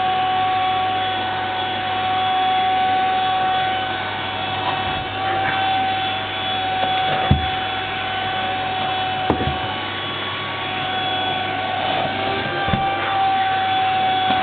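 Household vacuum cleaner running steadily with a high motor whine, with a few brief knocks partway through and near the end.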